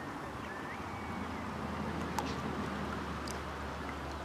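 Open-air ambience with a steady low hum, a few faint short rising bird chirps and a couple of small clicks.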